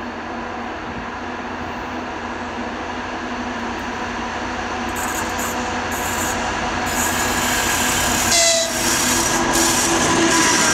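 2TE25KM two-section diesel locomotive hauling a freight train, its engine growing steadily louder as it approaches and passes close by, with the horn sounding in greeting.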